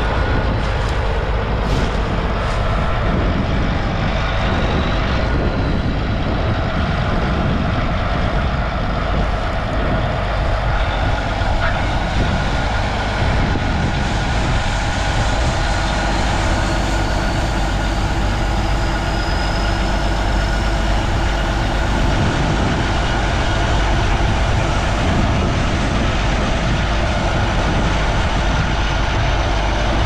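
Large track tractor's diesel engine running steadily while the grain cart's auger unloads corn into a semi trailer, with a faint high whine that slowly rises in pitch near the middle.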